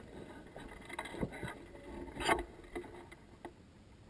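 Irregular knocks and rustles of a player's gear and footsteps moving through dry leaf litter, the loudest knock a little past two seconds in.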